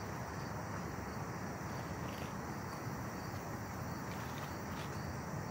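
Cicadas droning steadily, with a couple of faint taps as plastic bottles are handled.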